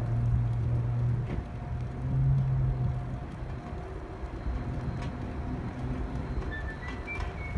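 A motor vehicle's engine running with a low, wavering hum, and a few short high tones near the end.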